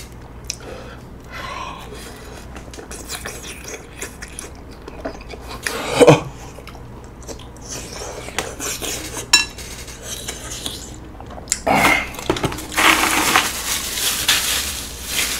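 Eating sounds: chopsticks clicking against a ceramic bowl while chewy rice cakes are chewed, with scattered sharp clicks and one louder knock about six seconds in. Near the end, a paper napkin rustles.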